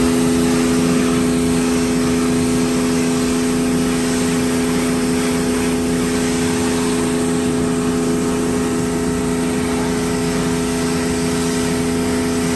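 Pressure washer running steadily with a constant hum, its spray hissing as it rinses a spray-on, rinse-off sealant off a car's honeycomb grille.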